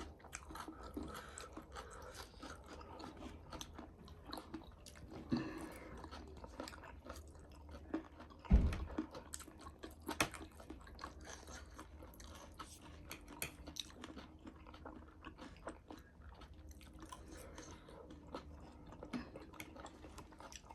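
Close-up chewing and crunching of a spicy snack, gilo chatpate (a wet spiced puffed-rice mix), with many small crunches and mouth clicks. There is a single louder low thump about eight and a half seconds in.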